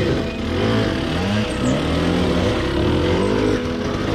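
Dirt bike engine revving, its pitch rising and falling several times as the throttle is worked.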